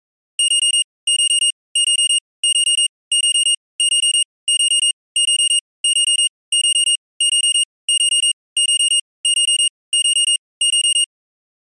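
Digital alarm clock beeping: a high electronic tone in quick clusters of about four beeps, each cluster repeated steadily about one and a half times a second, stopping shortly before the end.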